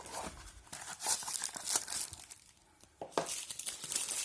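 Crinkling and tearing of packaging as a small advent-calendar box is opened, in two spells with a short lull a little after two seconds in.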